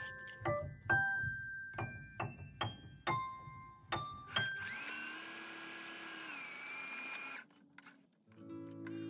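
Background music: keyboard-like notes stepping upward, then a held synth tone with a gliding melody. It breaks off briefly near the end before another tune begins.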